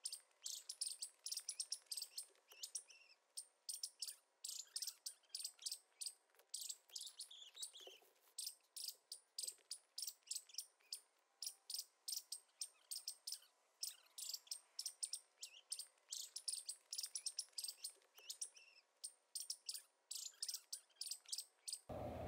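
Faint bird chirping: many short, high chirps in quick succession.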